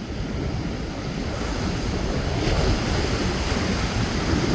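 Wind on the microphone and waves washing in, with a motor cruiser running fast past through the inlet and throwing its wake; the rush of noise grows louder about halfway through.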